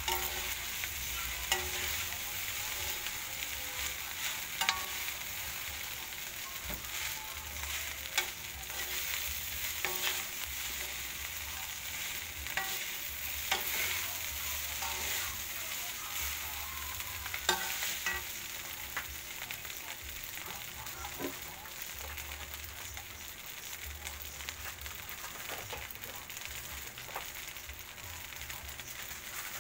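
Garlic fried rice sizzling steadily in a wok while a wooden spatula and a metal turner stir and scrape it, with scattered clicks of the utensils against the pan.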